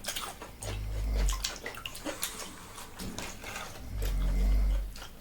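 Close-up eating sounds: chewing with scattered crackly clicks and mouth noises. Two low thuds come about a second in and again about four seconds in.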